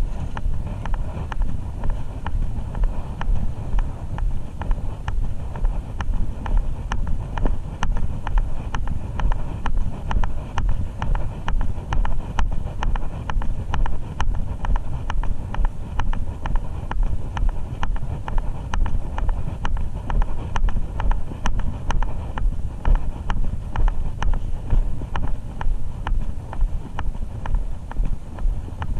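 Footsteps of a person walking at a steady pace, about two steps a second, with wind buffeting and rumble on a body-worn GoPro and light clicks of gear moving.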